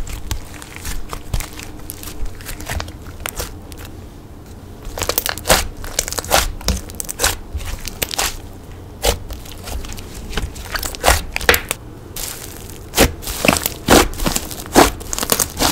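Soft, creamy slime being squeezed and poked by hand. Quiet squishing at first, then from about five seconds in a run of sharp, irregular pops and crackles, loudest near the end.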